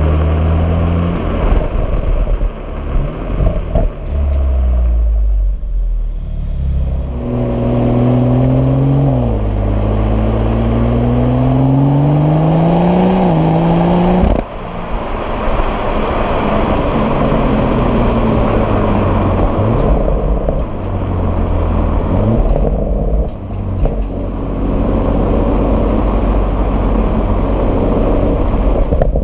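Exhaust and engine of a BMW F20 M135i/M140i-type hatchback's turbocharged 3.0-litre straight-six, driven under acceleration. The engine note drops at an upshift about nine seconds in, climbs steadily for about five seconds, then falls away abruptly as the revs drop; the revs rise and fall less sharply in the rest of the stretch.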